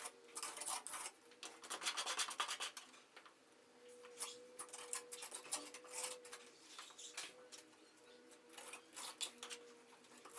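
Faint, irregular scraping and rubbing as a hand tool is worked over a wall surface, in short strokes of uneven spacing, over a faint steady hum.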